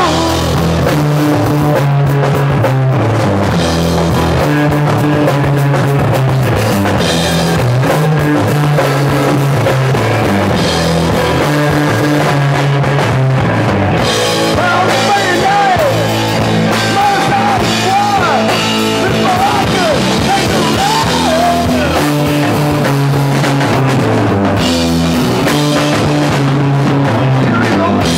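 Rock band playing live: electric guitar, bass and drum kit, loud and steady. A high melody line bends up and down in pitch through the middle.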